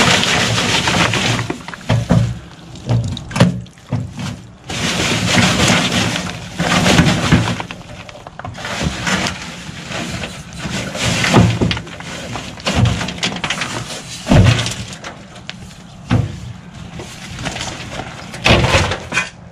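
Wet lumps of wood char sliding and clattering out of a tipped wheelbarrow into a plastic tote. The pour comes in several rushes with sharp knocks between them.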